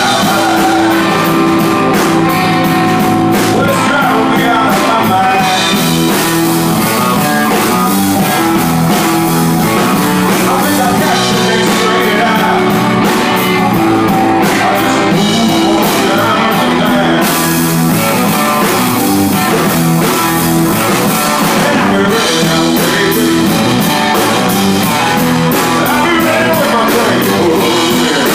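Live rock band playing loud and steady: electric guitar, drum kit with cymbals, and keyboard.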